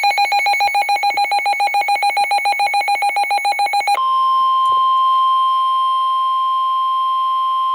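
Weather radio alert: a rapid electronic beeping, about nine beeps a second, then from about four seconds in a steady single-pitch tone, the NOAA Weather Radio warning alarm tone that comes before a severe thunderstorm warning is read out.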